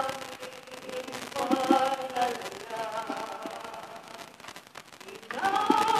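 A slow hymn being sung in long held notes, phrase by phrase, the singing of the communion hymn. About five seconds in, a louder phrase begins.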